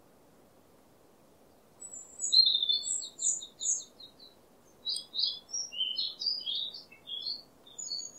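Songbirds chirping: after a couple of seconds of faint background hiss, a quick trill of rapid high notes, a short pause, then a string of varied, scattered chirps.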